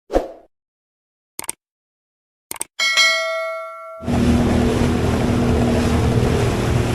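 The ride noise cuts out; a short thump and a couple of faint clicks follow, then a bell-like chime about three seconds in that rings and fades. About four seconds in, the jet ski's engine comes back, running steadily with wind and water noise.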